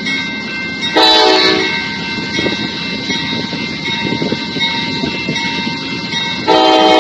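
Amtrak GE P42DC diesel locomotive sounding its multi-chime air horn: a short blast about a second in, then a long blast starting near the end, over the rumble of the approaching train. It is the short-then-long end of the warning sequence blown for a road grade crossing.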